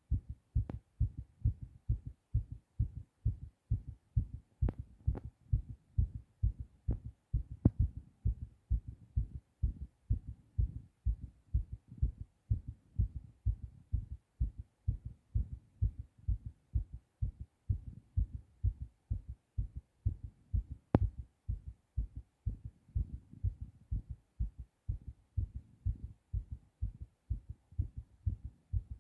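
A man's heartbeat beating fast and evenly, its rate raised after a hard cough while he is ill. A few sharp clicks come over it, the sharpest about 21 seconds in.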